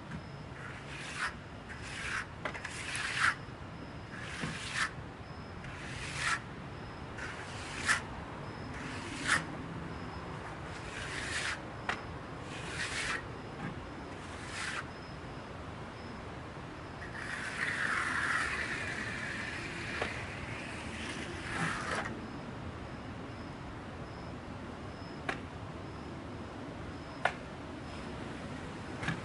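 A hand tool scraping over the freshly poured concrete slab in a quick run of short strokes, then one longer drawn-out scrape, with a few light clicks near the end.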